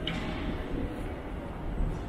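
Ambience of a large railway station concourse hall: a steady low rumble and hum, with one short click just after the start.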